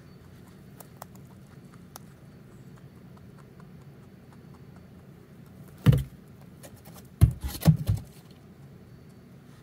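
Rabbit nudging a woven seagrass ball toy inside a cardboard hideout. There is a loud bump and rustle about six seconds in, then a quick cluster of bumps and scrapes a second later.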